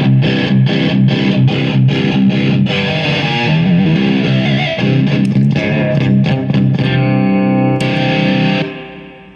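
Electric guitar played through a Marshall JCM 2000 amp, with a slightly overdriven tone: quick rhythmic picked notes and chords, then a held chord that is cut off sharply near the end.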